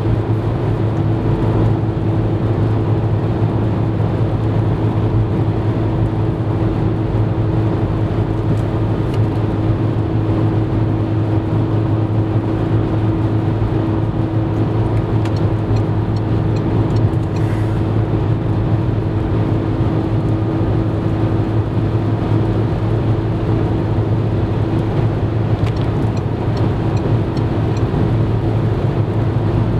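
Road noise inside a car cruising at motorway speed: a steady low drone of tyres and engine with a faint steady hum above it.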